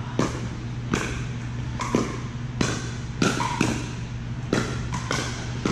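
A pickleball rally: hard paddles popping a plastic pickleball back and forth, with about nine sharp hits at uneven spacing, two of them in quick succession near the middle. A steady low hum runs underneath.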